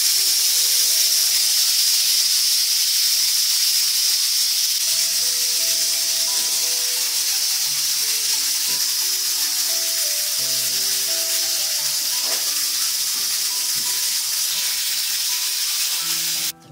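Steady, loud hiss of food cooking that cuts off abruptly near the end, with gentle background music underneath.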